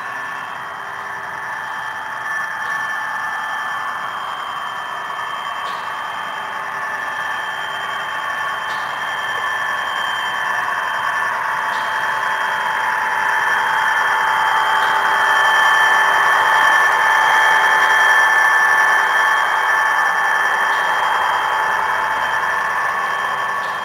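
HO-scale model freight train running through a yard, giving a steady high-pitched whining squeal. It grows louder toward the middle and eases off near the end.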